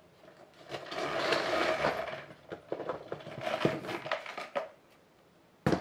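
Metal chain strap of a handbag clinking and rattling as it is handled and pulled through its fittings, with a run of small clicks. One sharp knock comes just before the end.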